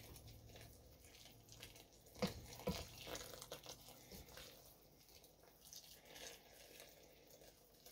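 Boiled water pouring faintly from an electric kettle into a stainless steel pan of soup, with two light knocks of the stirring spoon against the pan about two seconds in.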